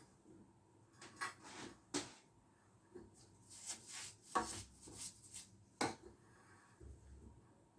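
Short, irregular scraping strokes and sharp metallic clicks from an M10 thread being cut by hand with a tap and tap wrench, the loudest two clicks past the middle.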